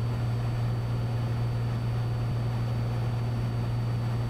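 Cessna 182 Skylane's engine and propeller droning steadily in flight, heard inside the cabin: a constant deep hum under an even rush of noise.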